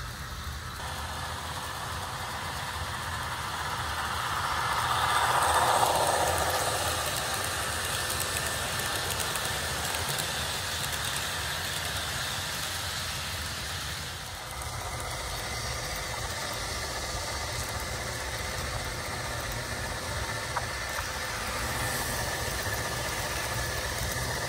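HO scale model diesel locomotive's LokSound sound decoder playing a diesel engine running, through its small onboard speaker, mixed with the rolling noise of the model train on the track. It swells loudest about five seconds in as the train passes close.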